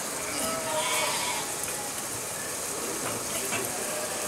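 A flock of sheep walking on a paved street, with a few scattered bleats over the steady patter of many hooves.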